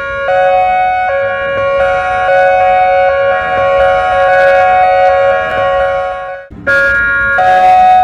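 Outdoor warning siren sounding two steady tones together, starting at full pitch rather than winding up. It cuts out briefly about six and a half seconds in, then starts again.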